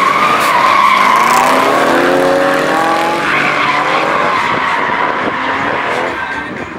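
Two BMW drift cars sliding in tandem, their tyres squealing steadily under heavy wheelspin while the engines rev hard, their pitch climbing about two seconds in.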